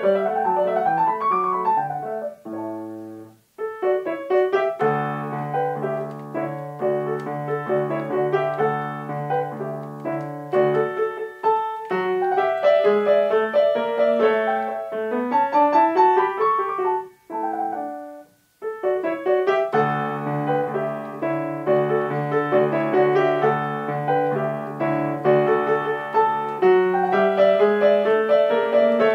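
Grand piano played solo: a classical piece with a running melody over a repeated low accompaniment, breaking off briefly about three seconds in and again about eighteen seconds in.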